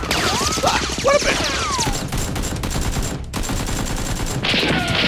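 Rapid volleys of gunfire sound effects, shots in dense bursts mixed with falling whistles of rounds flying past, with a brief break just after the middle.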